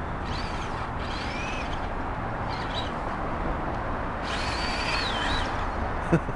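Birds calling: several clear whistled notes that rise and fall, the longest about a second, over a steady low rumble and hiss. There is a single sharp knock near the end.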